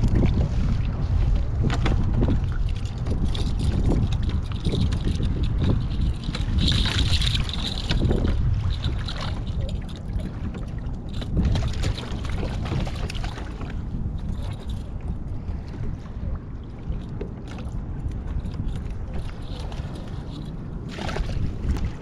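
Wind rumbling steadily on the microphone while a fishing kayak rocks on ocean chop, water sloshing against the hull, with a few short knocks.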